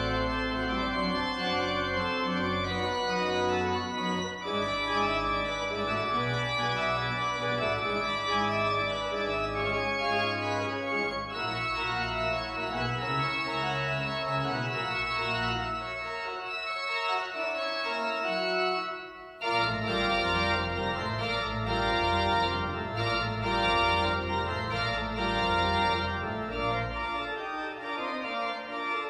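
Pipe organ playing sustained full chords over a deep pedal bass, with a brief break about nineteen seconds in before it goes on.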